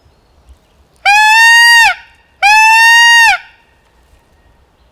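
Peacock locator call, the peacock setting of a mouth-blown 3-in-1 turkey locator call, blown twice: two loud, shrill wails just under a second each, each rising slightly and dropping off at the end. It is a shock call blown to make a tom turkey gobble and give away where he is.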